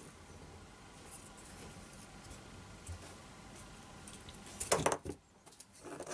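Faint steady hiss, then handling noise from a small homemade circuit board being turned in the fingers and set down on a plastic cutting mat: a short cluster of clicks and taps about three-quarters of the way through, and a smaller one near the end.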